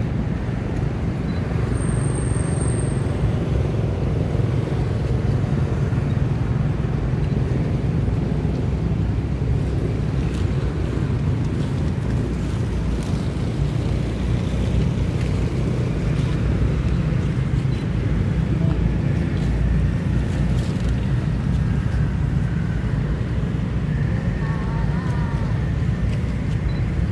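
Steady low rumbling background noise, with a few faint short chirping calls about 24 seconds in.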